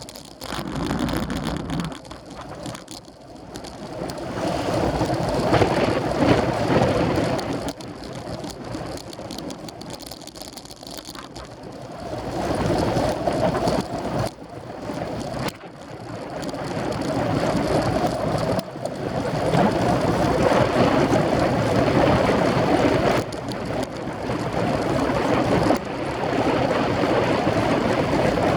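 Wind buffeting the microphone of a camera riding on a moving road bicycle: a loud, rough rush that swells and drops in gusts every few seconds.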